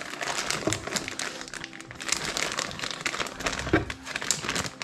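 Clear plastic kit bag holding sprues of white plastic parts, crinkling unevenly as it is handled and turned over.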